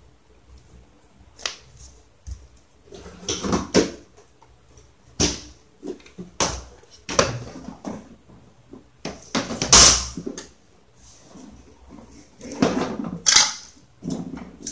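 A series of irregular knocks, clatters and rustles from things being handled, with the loudest clatter about ten seconds in.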